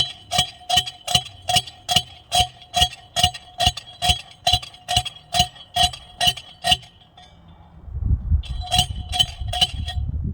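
Repeated metal-on-metal striking, about two and a half ringing blows a second at a steady pace. It stops about seven seconds in, then a few more blows come over a low rumble, which sounds like wind on the microphone.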